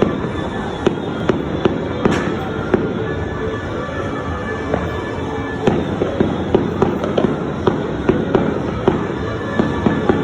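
Many fireworks and firecrackers going off at once: a continuous dense crackle with frequent sharp bangs at irregular intervals throughout.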